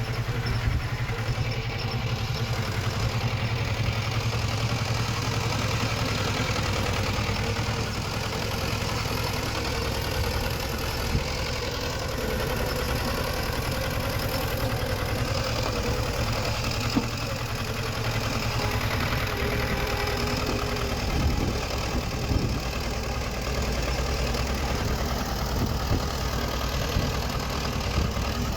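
Diesel engine of heavy earthmoving machinery running steadily at an even, low speed, with a few short knocks partway through and near the end.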